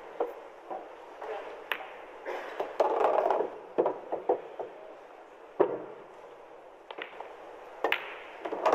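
Sharp, irregular clicks of pool balls knocking together and cue tips striking the cue ball on a pool table, with short spells of muffled background noise between them.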